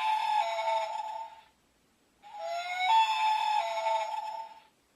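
A recorded bird call from a bird figure plays twice, each call about two seconds long: a whistled note that slides up, then holds, with a tinny electronic edge.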